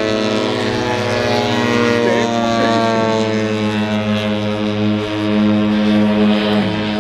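Model airplane engine running with a steady drone, its pitch sagging slightly near the end.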